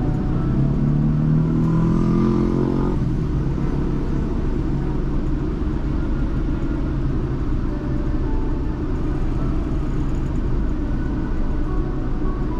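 Steady low rumble of car and road noise while driving in city traffic. For about the first three seconds a vehicle's engine climbs in pitch as it accelerates, then drops away suddenly.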